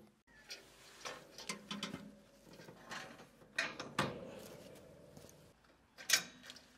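Scattered metal clanks and clicks of hands-on work fitting a two-stage snowblower to a garden tractor's front hitch, with the sharpest clank about six seconds in.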